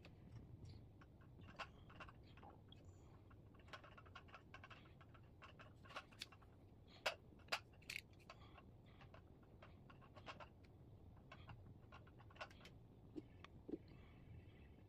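Faint, scattered clicks and taps from hands handling a smartphone and its cardboard box and paper tray, with three louder clicks around the middle.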